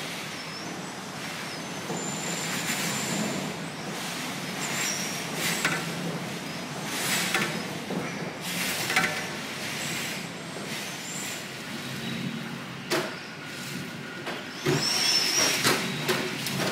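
Typhoon wind and rain: a steady hiss that swells and falls in gusts, with brief thin whistles and a sharp knock about 13 seconds in.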